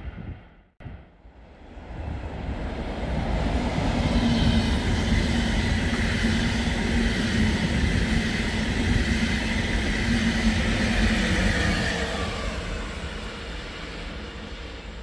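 ÖBB Railjet passenger train hauled by a Class 1116 Taurus electric locomotive passing at speed: wheels rolling on the rails with a steady whine over it. The sound comes in after a brief break about a second in, builds to its loudest over the middle and fades as the train recedes near the end.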